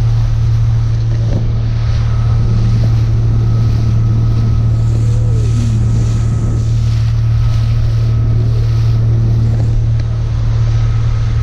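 Motorboat engine running steadily underway with a constant low hum, and wind buffeting the microphone.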